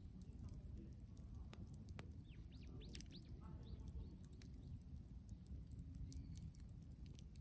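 Faint outdoor quiet with a few short bird chirps about two and a half to three and a half seconds in, over a low rumble. Scattered small ticks and pops come from the burned-down brushwood bonfire.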